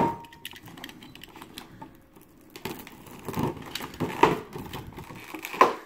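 Clear plastic blister packaging crinkling and clicking as it is handled and worked open, with irregular crackles. A sharp snap at the very start, then quieter clicks, growing louder past the middle and again just before the end.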